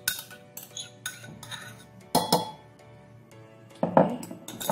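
A metal spoon and ceramic bowls clinking several times, with two louder ringing clinks about two seconds in and near the end, over quiet background music.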